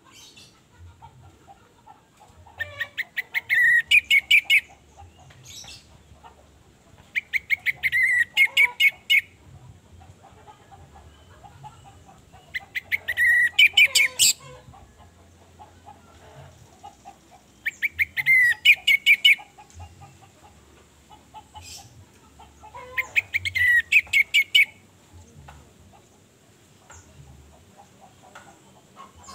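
Orange-headed thrush singing: five loud phrases, each about two seconds of rapid, sharp notes that build up in a quick run, coming about every five seconds with short pauses between.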